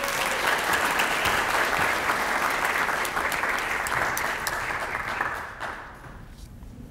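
An audience applauding, which fades out about five and a half seconds in.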